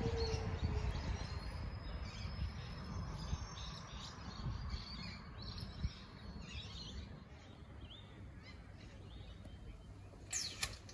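Metro X'Trapolis electric train pulling away, its low rumble fading as it draws off, while small birds chirp. A brief sharp high sound comes near the end.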